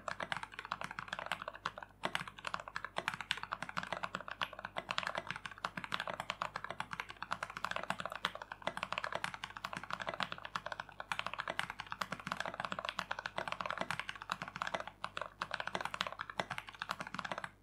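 Typing test on a custom mechanical keyboard with Shogoki 65g tactile switches and tall SA-profile keycaps: a fast, continuous run of keystroke clacks.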